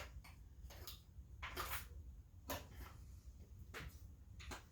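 A few separate light clicks and knocks, spread unevenly, from hand tools being handled over a faint steady low hum.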